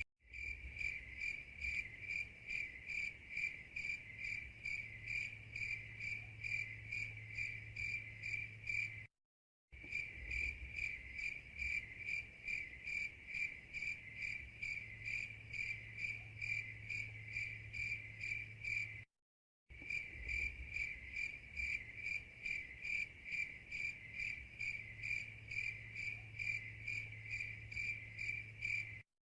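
Crickets chirping in a steady, even rhythm of about three chirps a second over a faint low hum. The recording is a loop: it breaks off into dead silence for a split second about every ten seconds and starts again.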